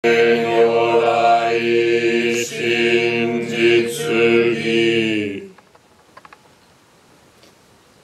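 Zen Buddhist chanting held on one steady pitch, with brief pauses for breath, ending about five and a half seconds in. A quiet room with a few faint ticks follows.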